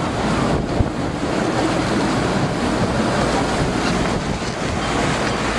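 Steady wind noise on the microphone over the wash of open-sea waves around a sailboat under way.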